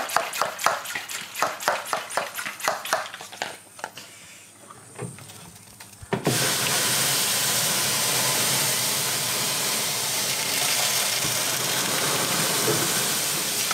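Hand-pump pressure sprayer: a quick run of short clicking strokes for the first few seconds, then from about six seconds in a steady hiss as it sprays water into a hot oven to make steam for a baking loaf.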